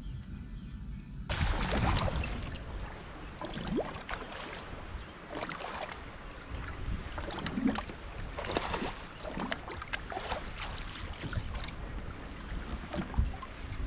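Water splashing and lapping around a boat, with irregular splashes, starting abruptly about a second in after a low hum.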